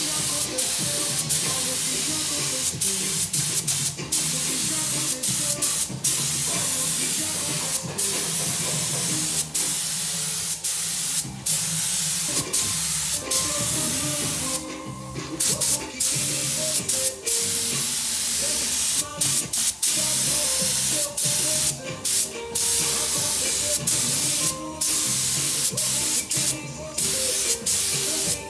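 Paint spray gun hissing steadily as paint is sprayed onto wooden speaker boxes, broken by many brief pauses where the spraying stops for a moment.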